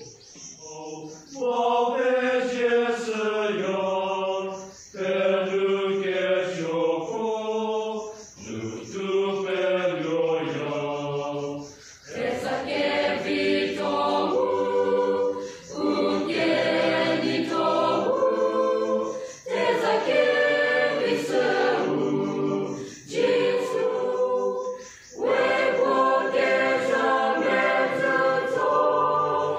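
A mixed church choir of women and men singing a hymn together from sheet music, in phrases of three to four seconds with short breaks between them.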